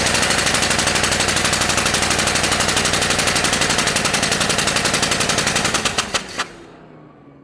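Chevrolet Corvette C4's V8 cranked on the starter for a spark check with a plug pulled: a loud, fast, even chugging of roughly thirteen pulses a second that stops abruptly about six seconds in without the engine catching, then winds down with a faint falling whine.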